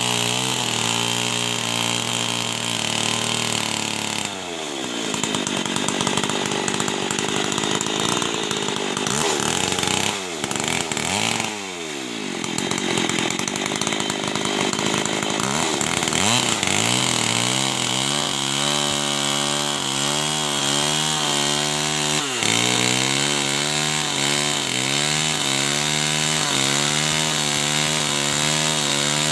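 Two-stroke chainsaw running at high revs while cutting wood. The engine speed drops sharply several times as the chain bites into the wood and recovers each time, then holds steady under load in the second half.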